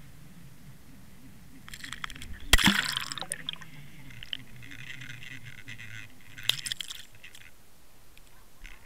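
Underwater recording from a camera on a fishing line: clusters of knocks, clicks and rattles as the rig moves against the camera, loudest about two and a half seconds in and again at about six and a half seconds. Under them runs a low wavering hum that fades out near the end.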